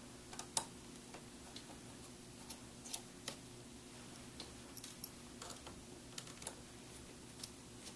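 Light, irregular clicks and ticks of a small precision screwdriver working the screen-mounting screws in the metal side frame of a laptop display panel, over a faint steady hum.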